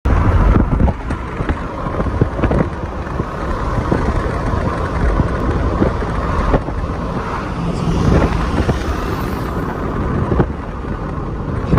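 Road noise of a moving taxi car: a steady low rumble of tyres and engine with wind, broken by a few short knocks.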